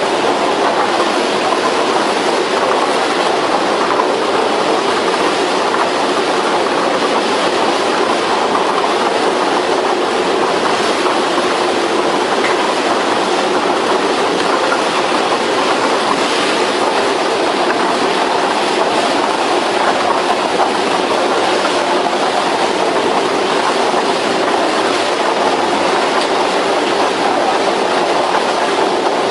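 Two-roller wood debarker running with a load of logs, the rollers churning the stems against each other and the steel trough as the bark is stripped off. A loud, steady, dense noise of wood knocking and scraping, unbroken throughout.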